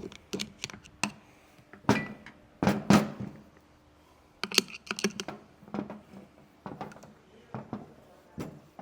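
Irregular knocks, clicks and clinks of metal differential parts being handled and worked loose, the loudest few around two to three seconds in, one with a short metallic ring.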